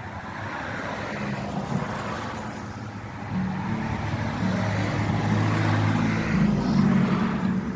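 Road traffic: a motor vehicle passing, with tyre noise building and a low engine hum joining about three seconds in, getting louder toward the end.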